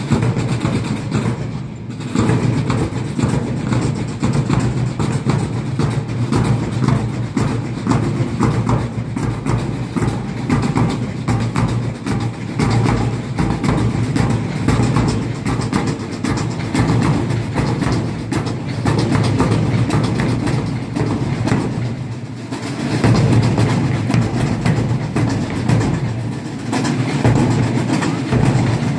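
Military drum corps playing a marching beat on side drums and a bass drum, quick rhythmic strokes throughout, briefly dropping and then coming back louder a little after two-thirds of the way in.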